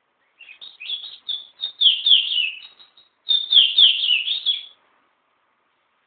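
Small caged songbird singing: two quick phrases of rapid, high chirping notes, many sliding downward, split by a short break about three seconds in.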